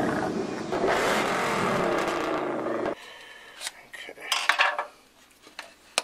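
A loud rushing whoosh effect with music cuts off sharply about three seconds in. Then a metal hand tool clinks and scrapes against the water-neck fitting of a Ford 5.0L Coyote V8 in a few short clicks.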